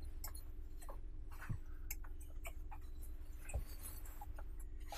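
Quiet cabin tone inside a parked bus: a faint steady low hum with scattered light, irregular clicks and ticks.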